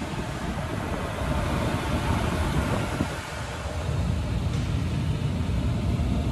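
United Air Specialists Dust Cat dust collector running, its 3/4 horsepower motor and blower drawing air through the unit in a steady rush.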